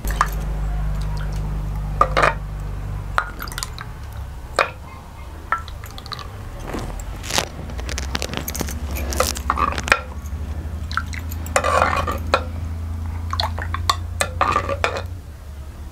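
A steel ladle clinking and scraping against a clay pot and clay cups as thick mango pulp is ladled out and poured, with scattered short clinks and knocks.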